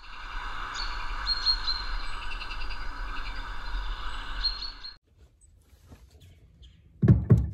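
Birds chirping and trilling over a steady outdoor hum, which cuts off abruptly about five seconds in. Near the end come two or three loud noisy bursts.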